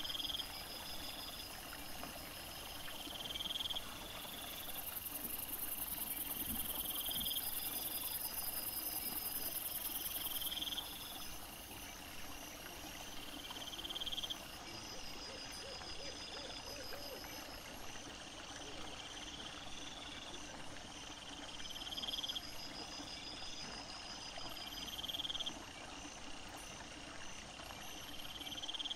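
Night chorus of insects and frogs: a high rising chirp repeats every three to four seconds, with a pulsing trill above it and a steady, very high insect hiss underneath that swells for several seconds early on.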